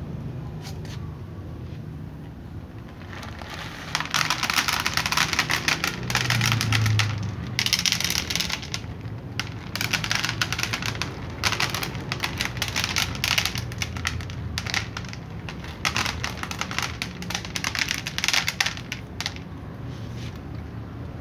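Dry cat kibble pouring from a plastic scoop and rattling onto a tray, in a series of dense clicking bursts about a second long, starting about four seconds in and stopping shortly before the end.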